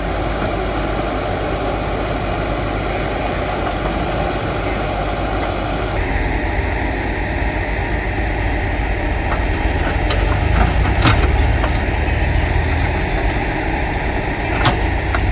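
Escorts backhoe loader's diesel engine running steadily while working, with a few short sharp knocks about ten to eleven seconds in and again near the end.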